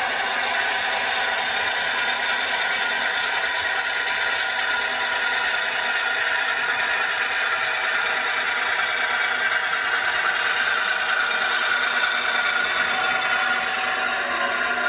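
HO-scale Athearn diesel switcher with an ESU LokSound decoder, playing its diesel engine sound through the model's small speaker as it creeps along the track. The sound is steady and thin, with no deep low end, and carries a mechanical whir and clatter.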